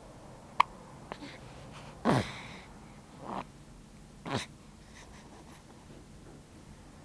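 A pet cat hiccuping: two small clicks, then three hiccups a little over a second apart, each a short sound dropping in pitch, the first the loudest.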